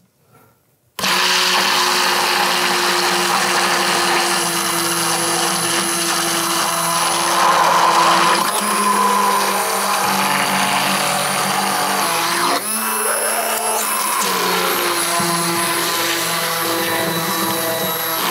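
Handheld immersion (stick) blender motor switching on about a second in and running steadily, its blade whirring in a beaker of egg yolks and oil as it emulsifies them into mayonnaise. The sound shifts briefly about twelve seconds in, then carries on slightly quieter.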